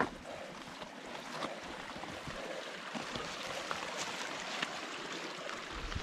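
Creek water rushing steadily, with scattered light clicks and footfalls over it.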